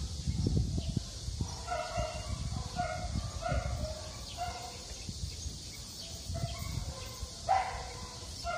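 Dogs barking in short, repeated yaps about twice a second, with low rumbling noise on the microphone early on.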